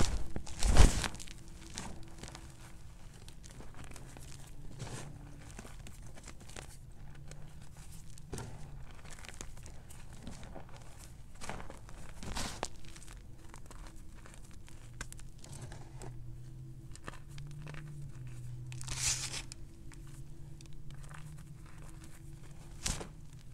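Hands squeezing and pressing crumbled gym chalk powder, giving irregular soft crunches and crumbling, the loudest about a second in. A faint steady low hum lies underneath.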